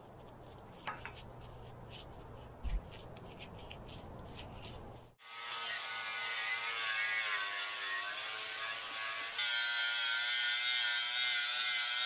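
Short scraping strokes of a hand brush on a steel wheel hub. About five seconds in, an angle grinder takes over, grinding rust off steel tube with its whine dipping and shifting in pitch as the disc is pressed into the metal.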